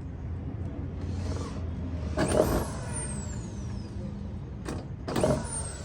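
A handheld power tool is run in two short bursts about three seconds apart. After each burst a high whine falls away as the motor spins down.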